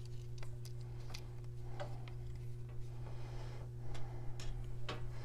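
Light, irregular clicks and taps of small M3 screws and a hex key being handled against the plastic launcher body and the tabletop while the screws are fitted into the adapter. A steady low hum sits underneath.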